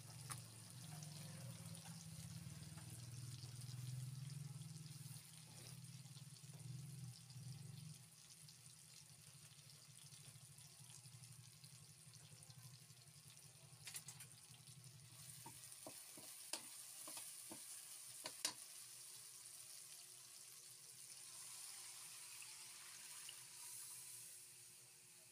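Faint sizzling of onion, garlic and tomato sautéing in oil in an aluminium wok. A metal spatula clicks and scrapes against the pan several times past the middle.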